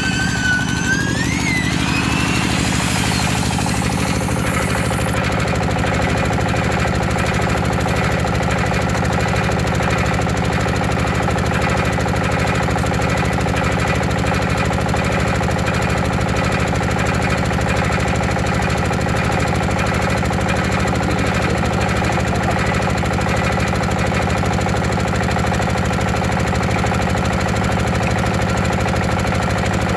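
Engine running steadily at a constant speed, an even mechanical drone. A high, wavering tone rises and fades away in the first couple of seconds.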